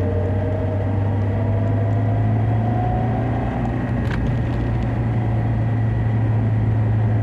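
Lada Niva Travel driving, heard from inside the cabin: a steady low drone with a whine that rises slightly over the first three seconds or so and then holds level.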